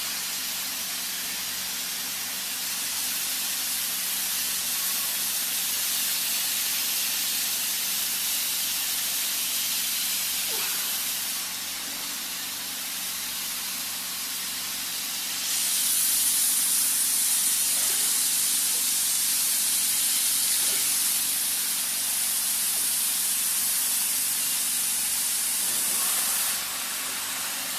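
HIGHTEX S701 hot-air welding machine's blower giving a steady hiss of hot air over a low motor hum. The hiss grows louder and brighter a little over halfway through and eases back near the end.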